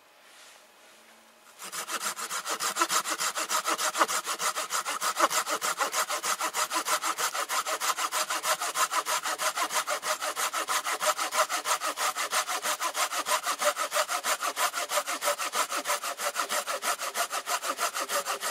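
Small, lightweight Fiskars hand saw cutting through a thin deadwood trunk, in quick, even back-and-forth strokes that start about a second and a half in and keep a steady rhythm.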